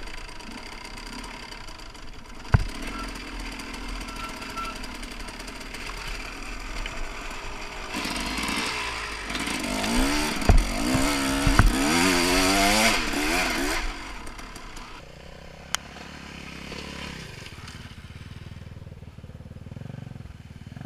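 Enduro dirt bike engine heard from the rider's helmet, running steadily along a trail, then revving hard up and down for several seconds with a few sharp knocks, before dropping back to a low, quieter run.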